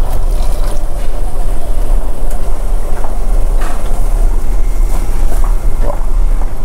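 Steady low rumble of the ferry Sunflower Kirishima's engines, with a fountain soda dispenser pouring a drink into a paper cup and a few light clicks.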